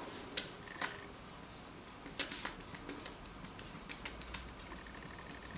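Whiteboard being wiped clean: faint rubbing with scattered light ticks and a couple of brief squeaks.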